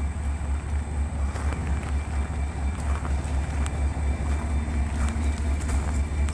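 Norfolk Southern GE wide-cab diesel-electric locomotive idling at a standstill: a low, steady engine rumble that pulses evenly a few times a second.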